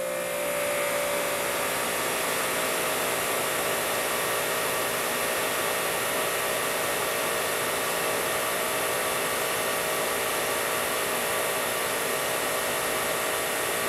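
Ryobi 2700 psi electric pressure washer running steadily under load with the trigger held, spraying through a 15-degree nozzle and an inline pressure gauge at about 2,500 psi. A steady rush of spray sits over an even motor-and-pump hum.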